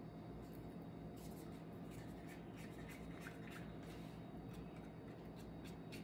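Faint light scrapes and ticks from handling small plastic paint cups and stir sticks, scattered irregularly over a steady low room hum.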